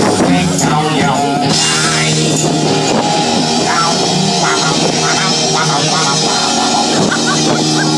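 Live rock band playing loud rock music, with electric guitar and drum kit.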